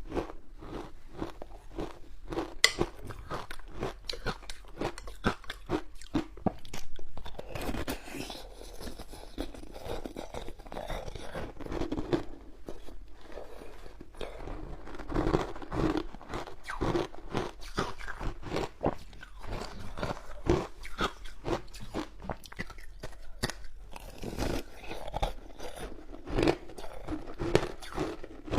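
A person biting and chewing frozen passion fruit shaved ice: a dense, irregular run of crisp crunches.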